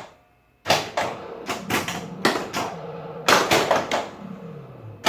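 Pinball machine being played: flippers clacking and the ball knocking, in several quick clusters of sharp clacks starting about half a second in.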